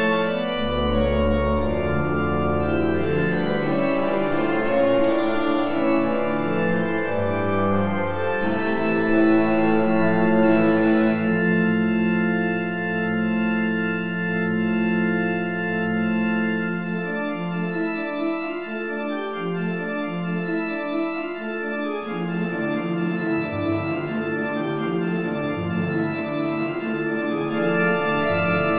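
Positive organ (small chamber pipe organ) playing slow, sustained held chords that shift every few seconds. Low bass notes sound near the start and drop out for a few seconds past the middle.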